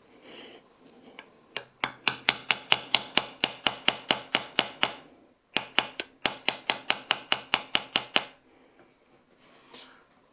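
Hammer tapping rapidly on a punch, driving a pistol sight sideways into its dovetail on a 1911 slide. There are two runs of even, sharp metallic taps, about five a second, with a short pause between them.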